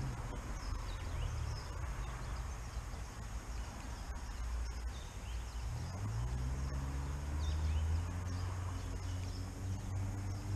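Riverbank ambience: leaves rustling in the trees, with faint bird chirps. Under it a low rumble with a droning pitch that rises about halfway through.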